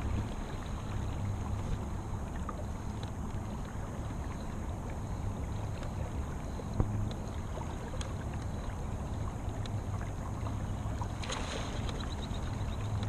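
Electric trolling motor pushing a kayak along, a steady low hum over a wash of water and wind noise. One sharp knock about seven seconds in.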